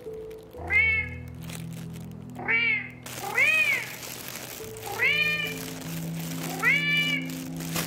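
A cat meowing over and over, about five rising-and-falling meows roughly a second and a half apart, over background music with long held notes.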